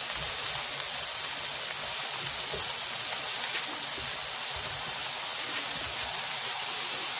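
Four high-fat beef smash burger patties sizzling in their own grease on an electric flat-top griddle: a steady hissing crackle.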